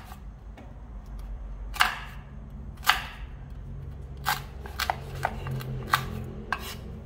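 A knife chopping through hard ripe noni fruit: about seven sharp chops at uneven intervals, the loudest near two and three seconds in, over a low steady hum.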